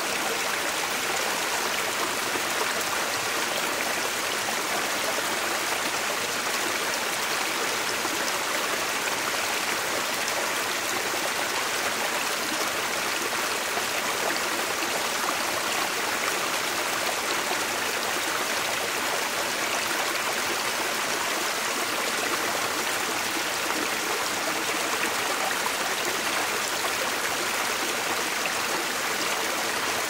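Small forest waterfall on a stream, water pouring over rocks in a steady rushing splash.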